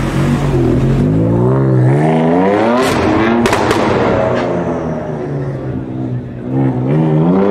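BMW M4 accelerating hard, its revs climbing. Three sharp exhaust cracks come as the revs drop about three seconds in, and the revs climb again near the end.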